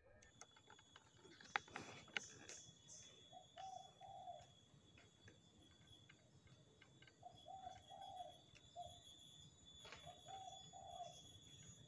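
A dove cooing faintly three times, each a short phrase of a few low notes. A couple of sharp clicks come just before the first phrase, and a faint steady high tone lies underneath.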